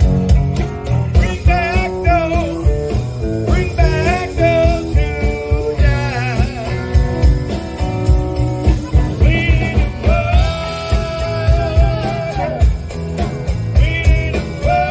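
Blues-rock music: a singer over guitar, bass and a steady drum beat, with a long held sung note near the end.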